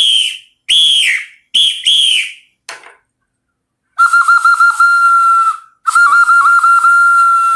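Forest sound effect of whistled bird calls: about four short, arching chirps in quick succession, then two long whistled notes, each opening with a rapid warble before holding one steady pitch.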